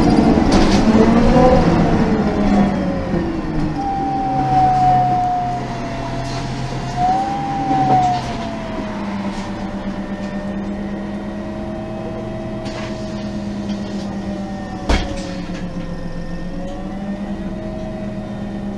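MAN NG 273 LPG articulated bus with Voith automatic transmission, heard from inside: the engine pulls with its pitch rising and falling over the first few seconds, then settles lower and quieter under a whine that drifts slowly in pitch. A single short knock comes about fifteen seconds in.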